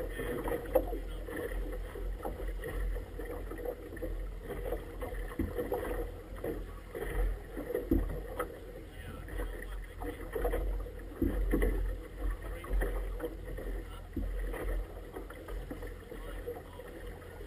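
Choppy river water slapping and splashing against an inflatable boat's tube in irregular bursts, with wind buffeting the microphone in uneven low rumbles.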